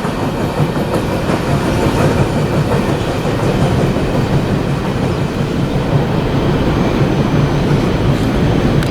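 Coal train's freight cars passing at speed, wheels clattering steadily on the rails.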